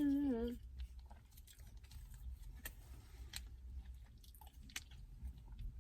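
Faint clicks and smacks of a person chewing close to the microphone, over a low steady rumble. A hummed voice trails off about half a second in.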